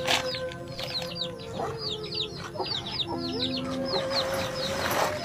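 Chicks peeping: a rapid run of short, high, falling chirps, several a second, with a brief rustle near the end.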